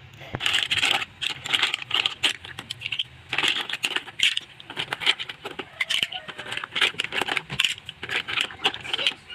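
Green mussel shells clattering as handfuls are dropped into a wide metal pan of seafood in sauce: a quick, irregular run of sharp clicks and clacks of shell on shell and on the pan.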